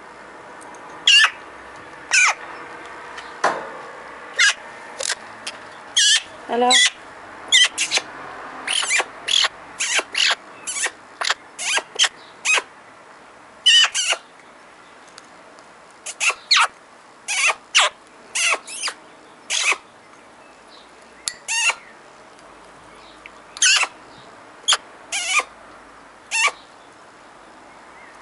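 Eurasian magpie giving dozens of short, harsh calls in irregular runs, about one or two a second, with a few brief pauses.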